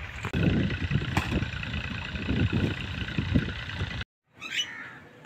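Wind buffeting the microphone in gusty low rumbles over a faint steady high hum; it cuts off suddenly about four seconds in.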